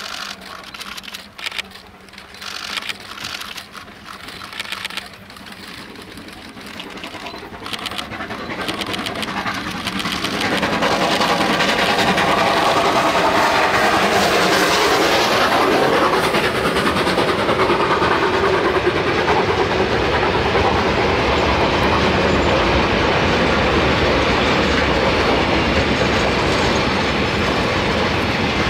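South African Railways steam train coming closer: over the first ten seconds its sharp beats grow steadily louder. From about eleven seconds on it runs close by with a loud, steady rush of wheels on rails, which holds to the end.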